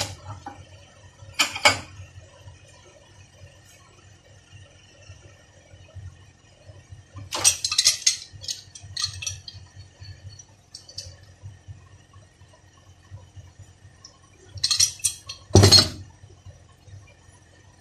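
Sharp metallic clinks and clanks of a hand tool against a steel steering rack assembly held in a bench vise. They come in short clusters: once about a second and a half in, a longer run around the middle, and again near the end, the last being the loudest, over a faint steady low hum.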